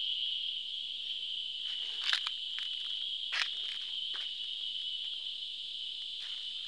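Steady high-pitched drone of insects in the forest, with a few crunching footsteps on dry fallen leaves, the loudest about two seconds and three and a half seconds in.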